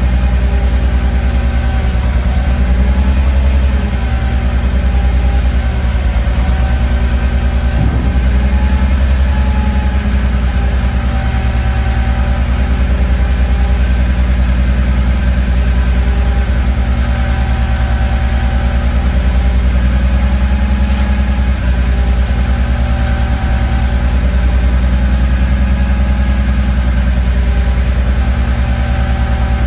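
Peterbilt front-loader garbage truck's natural-gas engine idling steadily, the Maxon front arms worked by hydraulics at idle with no revving. A couple of light knocks sound partway through.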